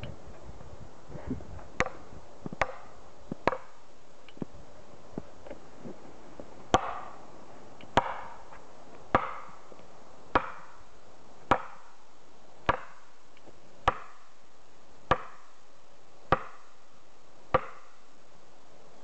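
Felling wedges being driven into a tree's back cut with blows from the back of an axe. A few light taps come first, then about ten heavy, evenly spaced blows a little over a second apart, each with a short ring. The wedging pushes the tree toward falling.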